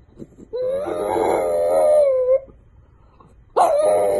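French bulldog howling: one long wavering howl of about two seconds, then a second howl starting near the end.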